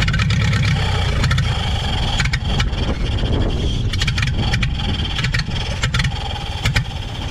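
1930 Ford Model AA's four-cylinder flathead engine running steadily, freshly revived after sitting 72 years and sounding good.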